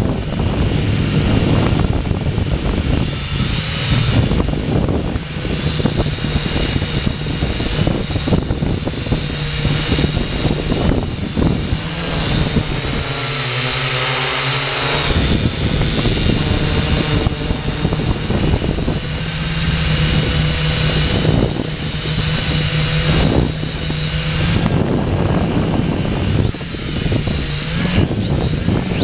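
Xtreem Fly Eye quadcopter drone's motors and propellers whining in flight, heard from its onboard camera, with wind buffeting the microphone. The whine wavers in pitch, and the low hum drops away for a couple of seconds about halfway through.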